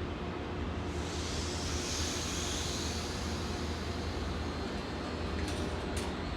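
Amtrak Acela high-speed electric trainset accelerating: a steady low hum under a broad running noise, with a hiss that swells about a second in and then fades. Two brief clicks come near the end.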